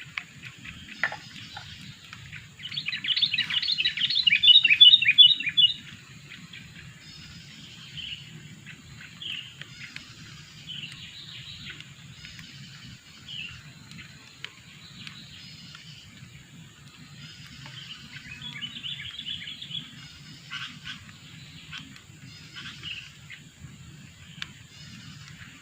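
Sooty-headed bulbul (kutilang) calling: a loud, rapid chattering run of notes about three seconds in, then scattered short calls and a second chatter near the middle, over a steady low background rumble.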